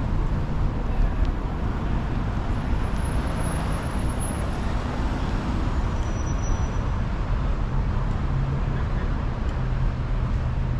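City street ambience: steady traffic noise with a low engine hum that grows stronger in the last few seconds, and faint voices.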